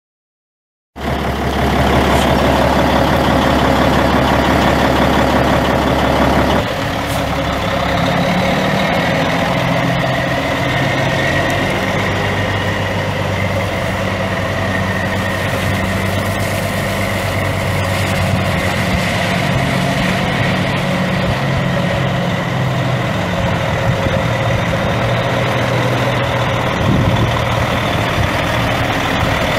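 Caterpillar 3306 inline-six turbo diesel of a Peterbilt 379 semi truck running. It starts suddenly about a second in, changes abruptly about six seconds in, and then idles steadily.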